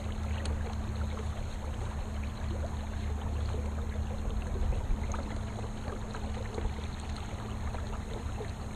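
Electric trolling motor on a kayak running steadily with a low hum and a constant tone, while water splashes and trickles along the hull.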